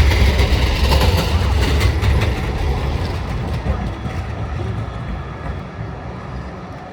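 Tram rolling past on rails: a loud low rumble with a few clicks from the wheels early on, fading steadily as the tram moves away.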